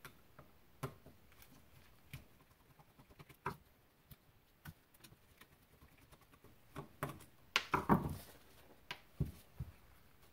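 Scattered light clicks and taps from gloved hands handling a small Honda TRX90 carburetor and its parts over paper. About eight seconds in comes a denser run of knocks and paper rustling.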